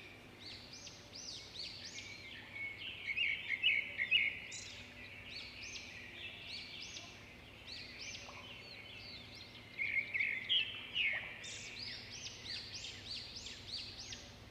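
Several small birds singing and chirping at once, in quick series of short rising-and-falling notes, with louder bursts of song about three seconds in and again about ten seconds in.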